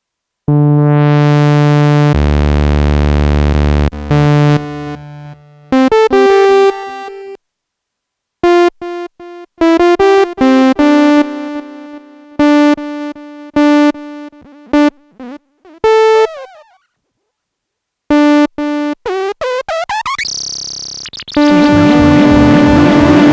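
Korg Minilogue XD synthesizer playing demo patches: a held note that brightens as it opens up, then runs of short, plucky sequenced notes broken by brief pauses, a noisy rising sweep near the end and a dense sustained tone to close.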